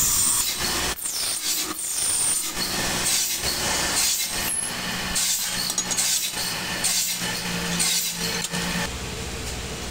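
Rhythmic rasping strokes of a tool worked back and forth over a workpiece, about one or two a second, over a faint steady hum. The strokes stop near the end.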